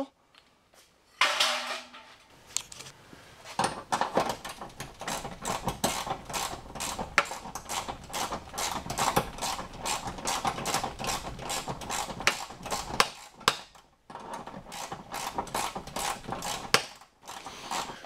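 Ratchet wrench clicking rapidly as the bolts on a garage door panel's hinges and roller brackets are loosened, with a short pause about three-quarters through. A knock of metal hardware comes shortly before the clicking starts.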